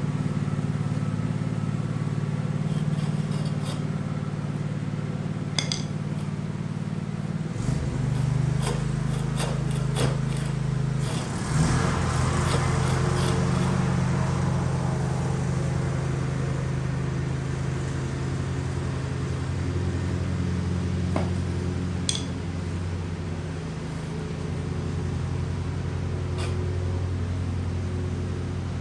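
Riding lawn mower engine running steadily, with a shift in its tone about seven and a half seconds in and a brief rush of noise around twelve seconds.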